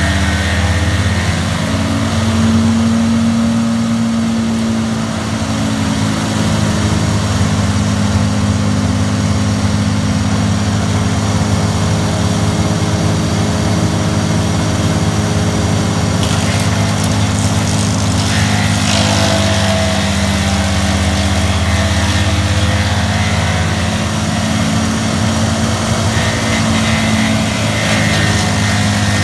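Tow-behind brush chipper's engine running steadily at working speed, with a harsher, rougher stretch a little past halfway.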